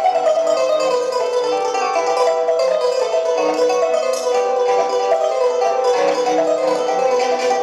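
Wooden folk harp being played, fast runs of plucked notes in a lively melody.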